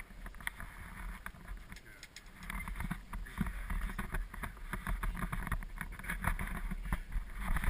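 Ride noise inside a moving gondola cabin: a steady low rumble with many short clicks, rattles and knocks.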